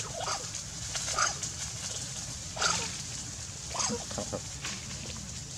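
Macaque monkeys giving short squeals, about five separate calls spread over a few seconds, during a scuffle between an adult and babies.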